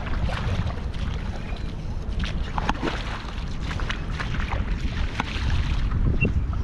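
Wind rumbling on the microphone, with scattered small wet clicks and taps on top.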